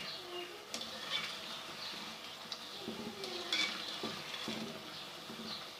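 Bhallas (lentil fritters) deep-frying in hot oil, a steady soft sizzle, with a few short clicks of a utensil against the pan as they are turned.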